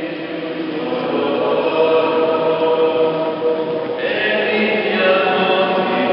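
Many voices singing a hymn together at a Catholic mass inside a large church, holding long notes. The singing grows brighter about four seconds in.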